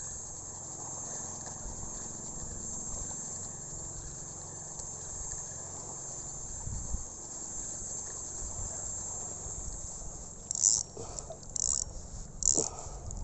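Steady, high-pitched chorus of insects, over a low, uneven rumble. Near the end come several short scratchy bursts about a second apart.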